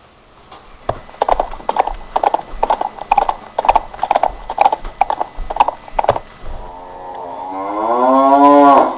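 Cow mooing sound effect: a long, loud moo that rises in pitch and then breaks off suddenly. Before it, a run of sharp rhythmic knocks, about two or three a second, lasting some five seconds.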